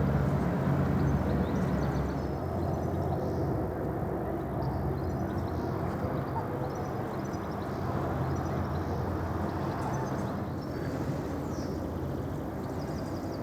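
Low, steady drone of a ferry's engines, with a broad rushing noise over it. Short, faint high chirps of small birds come and go throughout.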